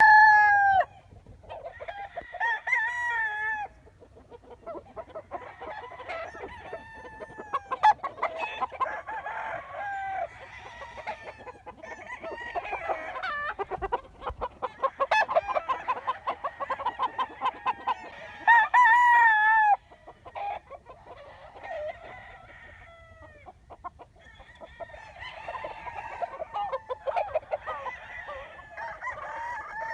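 Roosters crowing several times, with loud crows at the very start and again about two-thirds of the way in, over chickens clucking throughout.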